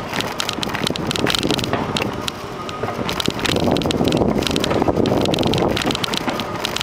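Wind buffeting the microphone of a camera carried on a moving bicycle, a loud steady rush, with many small clicks and rattles throughout.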